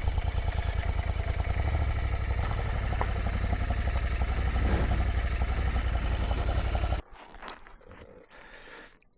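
Royal Enfield 650 parallel-twin motorcycle engine running steadily while being ridden, then cutting off abruptly about seven seconds in. A few faint clicks and scrapes follow.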